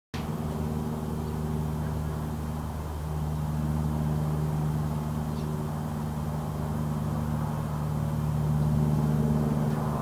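An engine running steadily with a low, even hum that swells a little louder a few seconds in and again near the end.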